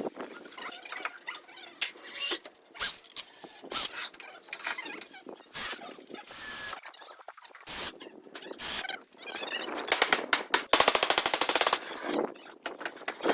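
Timber-construction tool noise: a string of sharp knocks and bangs, with a rapid rattle of strikes lasting about a second, a little before the end.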